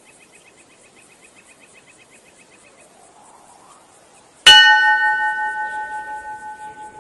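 A single bell struck once about four and a half seconds in, ringing with several clear tones that fade away over a couple of seconds. Before it, a faint background with a rapid ticking trill.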